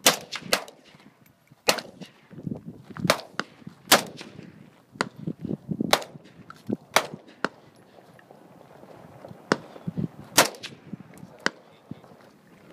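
Gunfire from an AK-47-type rifle and from pistols, about fifteen single shots fired one at a time at irregular intervals.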